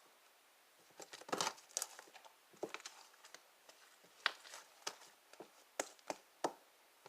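Slime being poked and worked by hand, giving scattered faint clicks and crackles, with the loudest cluster about a second and a half in.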